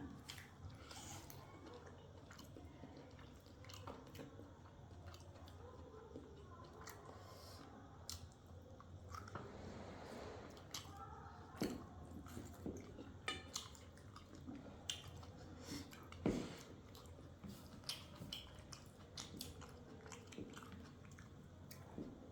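Faint close-up chewing and eating of a meal of pork, mustard greens and rice, with scattered small clicks and taps, two of them sharper about twelve and sixteen seconds in.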